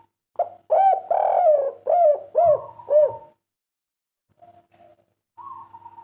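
Spotted dove (derkuku) singing its 'kuk 3' song: a loud run of about six arching coos in the first three seconds, then softer cooing near the end.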